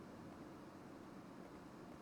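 Near silence: steady low hum and hiss of room tone, with no keystrokes.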